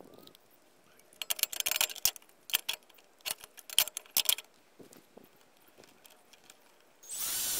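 Small metal parts clinking and rattling for a few seconds as they are handled at an electrical box, then a cordless drill runs loudly for about a second near the end.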